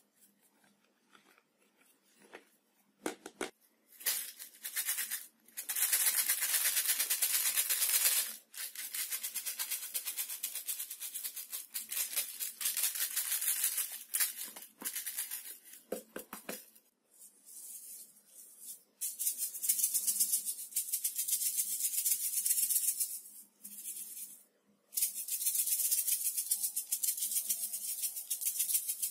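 Slime studded with foam beads and sprinkles being squeezed and stirred by hand: a dense crackling and popping in several stretches of a few seconds, with short pauses between.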